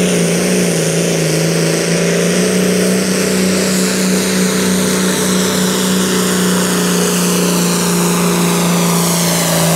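John Deere Super Farm pulling tractor's turbocharged diesel engine running flat out under load as it pulls the sled down the track, a steady loud drone. A high whine above it sinks slowly in pitch through the second half.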